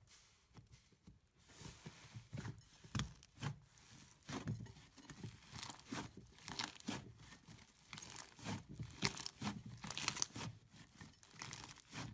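Hands kneading and squishing a thick pink slime, making a run of irregular crackles, pops and squelches that begins about a second and a half in.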